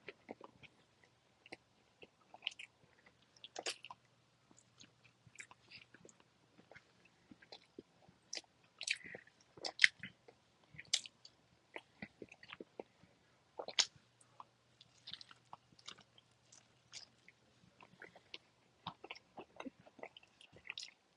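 A person eating close to the microphone, biting and chewing crunchy food, most likely the fried chicken sandwich and fries. Scattered sharp crunches and chewing clicks come throughout, with a few louder bites about eight to eleven seconds in and again near fourteen seconds.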